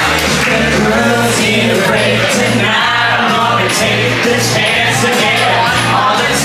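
Music with singing over a steady bass beat, about two beats a second.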